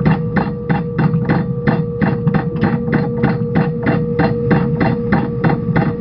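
Sailing barge's inboard engine running slowly, an even knocking about five times a second over a low, steady hum.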